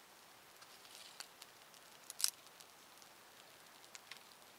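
Small wood campfire of split logs and twigs crackling, with scattered sharp pops; the loudest pop comes a little past two seconds in.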